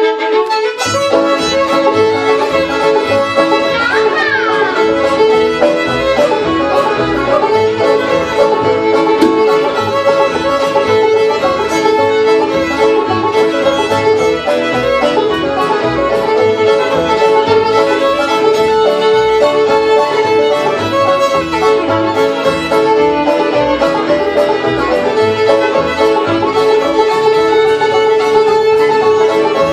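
Acoustic string band playing a Cajun fiddle tune: fiddle leading over strummed acoustic guitar and upright bass, the music starting at once on the count-in.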